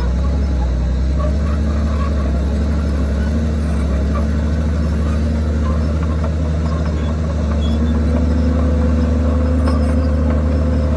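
Komatsu D51PX bulldozer's diesel engine running steadily, its pitch rising a little about three-quarters of the way through and holding there.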